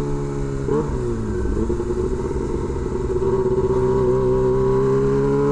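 Kawasaki Ninja ZX-25R's 250 cc inline-four engine running through an SC Project H2 aftermarket exhaust while riding. The note drops briefly at a gear change under a second in, then climbs steadily as the bike accelerates, with wind rumble underneath.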